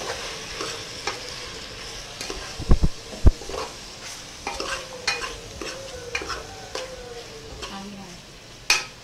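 Metal spoon scraping and clinking against a metal pot while stirring spice-coated meat chunks, over a steady sizzle of frying. Two dull thumps come about three seconds in, the loudest sounds in the stretch, with a sharp knock near the end.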